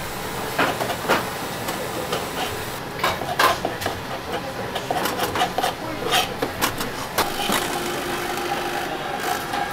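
Wooden pestle grinding and scraping a paste in a ridged ceramic mortar (suribachi), with rasping and irregular knocks, thickest in the middle seconds, over a steady kitchen hum. Near the end the grinding stops, leaving the hum and a steady tone.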